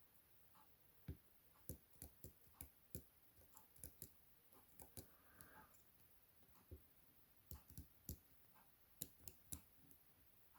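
Faint, irregular clicks of a lock pick working the pins of a Chubb M3 lock, whose pins have to be both lifted and rotated, in a steady scatter of small ticks.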